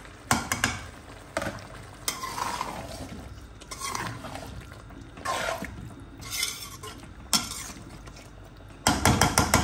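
Boiled chana dal and its cooking water poured into a metal pot of fried pumpkin, then stirred with a metal spoon that swishes through the liquid and knocks against the pot. A quick run of metal knocks comes near the end.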